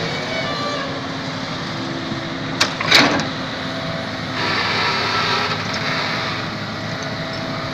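Excavator engine running steadily. Two sharp knocks come about two and a half to three seconds in, and the machine grows louder for a second or two about halfway through.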